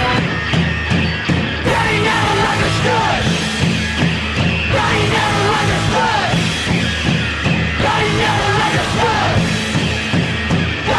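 Loud rock music in a punk style, with a yelled, sung vocal coming in about two seconds in over a heavy, steady backing.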